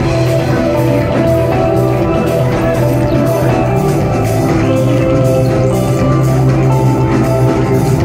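Loud live concert music through a club sound system: a steady heavy bass note under layered sustained tones, with no break.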